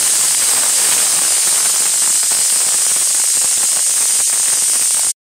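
Steady, loud hiss, even throughout, that cuts off abruptly near the end.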